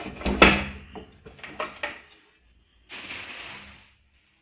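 Knocks and clunks of metal drill-press parts being handled and fitted together, the loudest about half a second in, then a short hissing noise around three seconds in.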